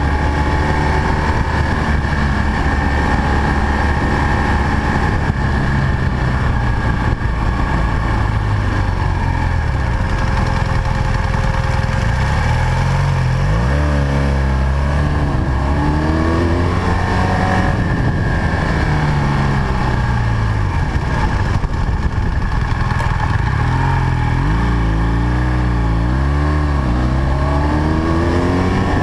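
BMW R1200 GS boxer-twin engine pulling the bike along. The revs rise and fall several times as it is throttled through the bends, over a steady rush of wind noise.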